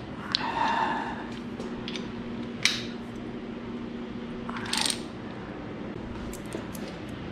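Scattered metal-on-metal clinks and scrapes of a ratchet wrench and mount bolts being handled. There is a short clatter about half a second in, a sharp clink near three seconds, a brief scrape near five seconds and a few light ticks toward the end, over a faint steady hum.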